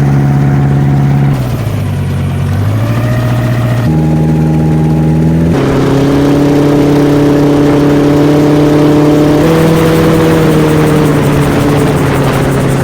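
Homemade gyrocopter's engine and propeller running loud and steady. Its pitch dips and climbs again about two seconds in, then jumps abruptly to higher, steady speeds a few times.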